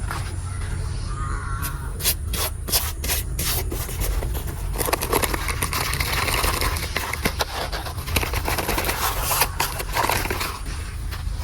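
Scraping and rubbing with many sharp clicks, thickest in the middle of the stretch, over a steady low rumble.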